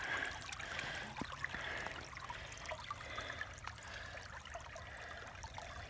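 Shallow creek water trickling and babbling over rocks, a steady flow with a few faint clicks.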